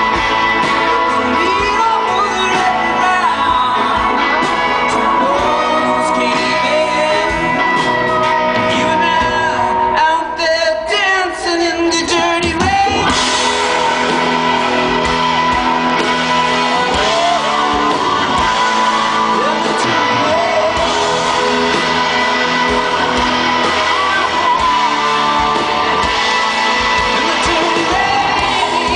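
Live rock band playing, with electric guitar and sung vocals. After a brief rough break, the band comes back in fuller and brighter about thirteen seconds in.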